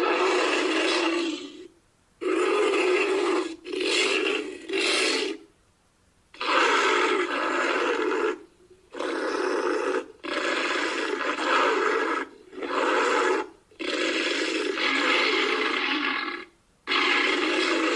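A series of about ten harsh, growling roars and grunts, each about one to two seconds long, with short silences between them. They are made from bear and hippopotamus recordings to stand for the call of an extinct hoofed carnivore.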